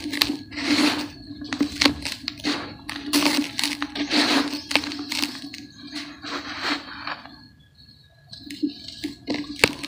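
Dry brown dirt crushed and crumbled by hand: clods crunching and breaking apart, with powdery dirt sifting through the fingers in a run of short bursts. There is a brief pause about three-quarters of the way through, then a few sharp cracks.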